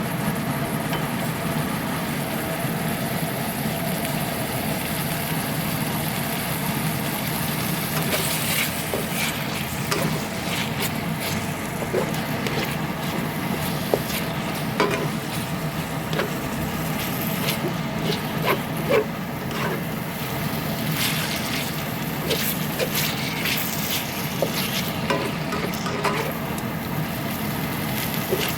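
Food sizzling in a pan over a steady whirring hum. From about eight seconds in come repeated clinks, knocks and scrapes of a utensil stirring in the pan.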